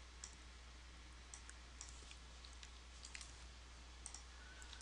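Near silence with about a dozen faint, scattered clicks of a computer mouse and keyboard, over a steady low hum.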